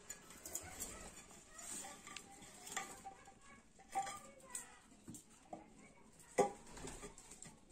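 Scattered light metal clinks and knocks of cooking utensils, then a louder clank with a short ring about six seconds in as a steel plate is set as a lid on a black karahi wok.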